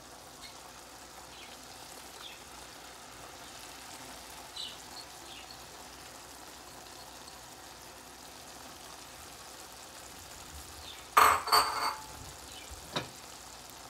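Pot of potatoes and spinach in tomato sauce simmering with a faint, steady sizzle. About eleven seconds in comes a brief loud clatter of kitchenware against the pot.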